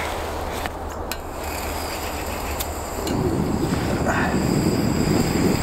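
Canister gas camp stove being started: a few clicks and a thin gas hiss, then about three seconds in the burner catches and runs with a steady rushing noise under the frying pan.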